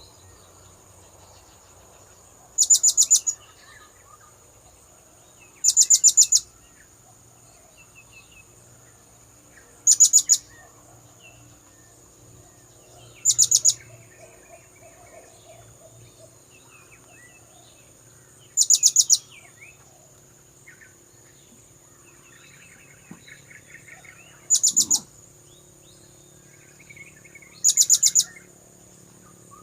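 Blue-crowned hanging parrot (serindit) calling: seven short bursts of rapid, shrill high-pitched notes, each about half a second long and a few seconds apart. A steady high-pitched whine and faint chirps of other birds run underneath.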